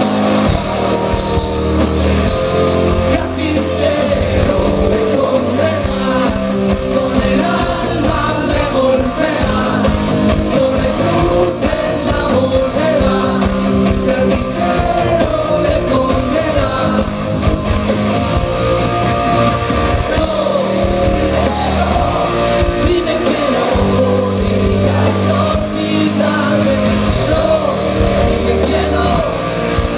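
Live rock band playing with singing: guitars, bass and drums at a steady loud level with a sung vocal line over them.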